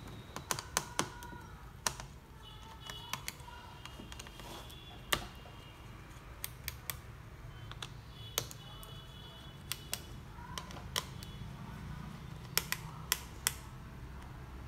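Irregular sharp clicks and taps of hands handling the internals of an opened Lenovo ThinkPad E15 Gen 2 laptop, with a few faint short squeaks and a quick run of clicks near the end.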